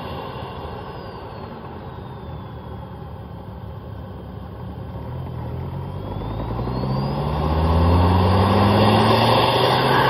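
Volvo S60R's turbocharged 2.5-litre inline-five, picked up in the engine bay right at the air filter. It runs quieter for the first few seconds, then from about halfway its revs climb steadily and it grows much louder, with a faint high whistle that dips and then rises again as the revs go up.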